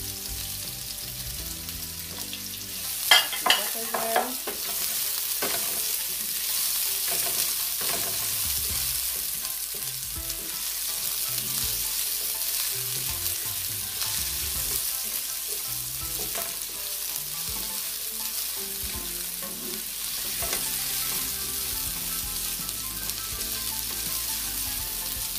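Sliced onion and scotch bonnet pepper sizzling in hot vegetable oil in a frying pan while being stirred, with a few sharp knocks about three seconds in.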